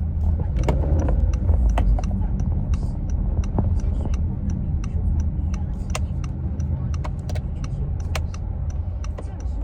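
Steady low rumble of a car in motion, with scattered light clicks and knocks throughout.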